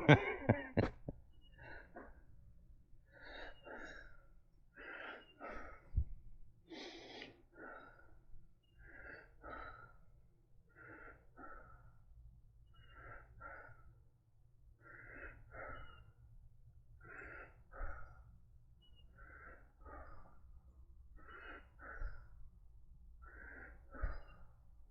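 A man's breathing, a breath in and out about every one and a half to two seconds. It is the breathing of COPD, his medication missed.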